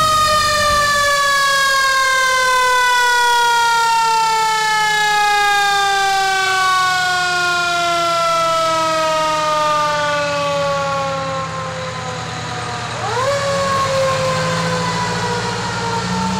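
1988 Pierce fire engine's siren sounding a long, slow falling wail after a quick wind-up, then winding up again about 13 seconds in and falling once more. The truck's engine runs low underneath and grows louder near the end.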